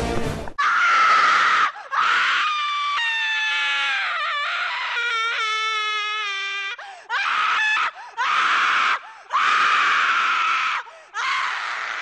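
A young man's exaggerated, play-acted screams as a character being stabbed: a series of long, high screams with short breaks between them, one drawn out, wavering and falling in pitch. A loud burst of noise opens the first half second.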